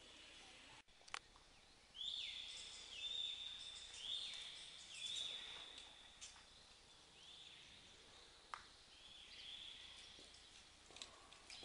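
Birds giving a run of high whistled calls, each a short note that rises quickly and then holds, several in quick succession from about two seconds in and again near the end. A few sharp clicks are heard in between.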